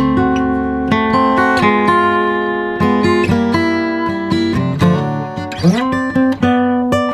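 Background music: an acoustic guitar playing plucked notes and strums, with a couple of sliding notes about five to six seconds in.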